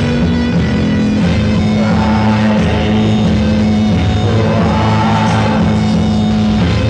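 Loud rock music from a band recording, with guitar.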